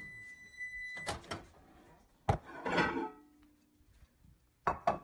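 A steady high beep lasting about a second, then a few sharp knocks and clicks of a dog's food bowl being handled, with a short rattle of dry kibble in the bowl, and two more quick clicks near the end.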